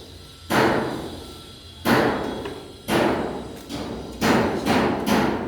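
Repeated heavy knocks, about six, each dying away over most of a second. They come a second or more apart at first, then faster near the end.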